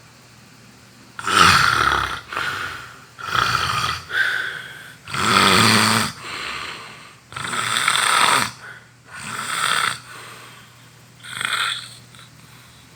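A person snoring very loudly: a run of about nine snores, some coming in quick pairs, starting about a second in and stopping about a second before the end.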